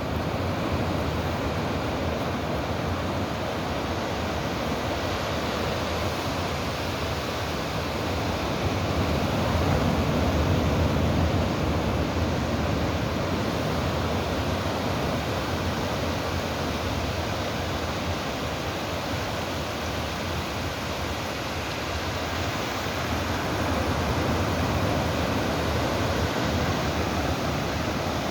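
Sea waves making a steady rushing surf noise that swells slowly twice and eases again.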